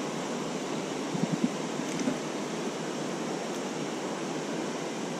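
Steady rush of a shallow river running over rocks, with a few short, low thumps a little over a second in.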